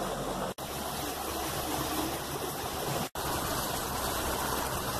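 Steady rush of water and wind past a moving river tour boat, with the boat's motor humming low underneath. The sound cuts out for an instant twice.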